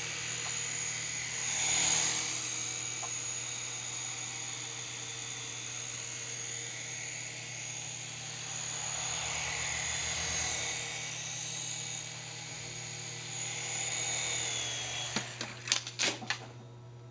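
S107G coaxial mini RC helicopter in flight, its small electric motors and rotors giving a steady high whine that swells and fades as it moves about. Near the end come several sharp knocks, and the whine drops away.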